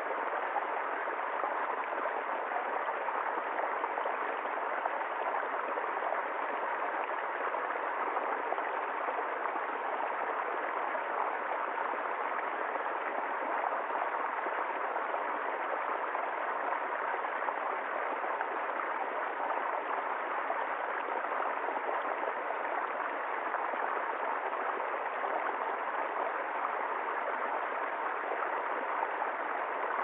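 Small stream pouring over a fallen log into a shallow pool: a steady rush and splash of running water, unchanging throughout.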